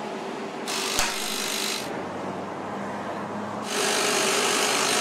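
Compartment doors of a refrigerated oyster vending machine being worked, giving two rasping, rubbing bursts with a click in the first, over a steady low hum.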